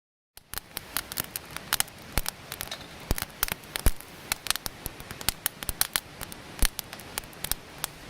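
Irregular crackling and popping over a light steady hiss from cooking over a small wood fire, starting suddenly about half a second in.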